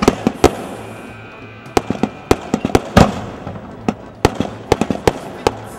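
Sharp bangs and pops at irregular intervals, sometimes several a second, the loudest about three seconds in, over background music.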